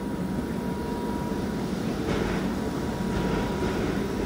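Keihan 8000 series electric train pulling out after its doors close, giving a steady running noise of motors and wheels. A thin steady tone sounds over it and stops near the end.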